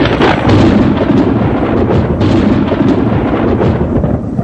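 Loud music with heavy drums, a dense, noisy intro.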